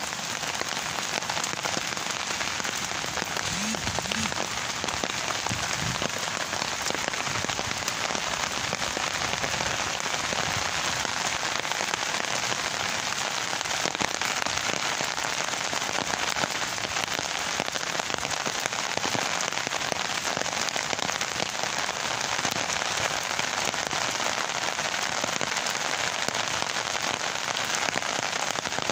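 Steady rain falling on leaves and grass: a dense, even hiss of many small drops.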